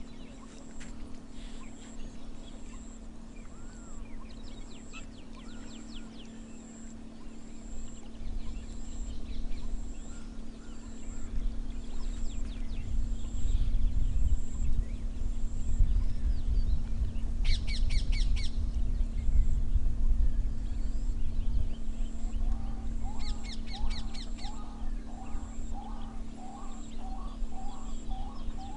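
Wild birds calling over a low rumble and a steady low hum. Scattered calls build into rapid repeated trills about two-thirds of the way in, and a run of short repeated calls follows near the end.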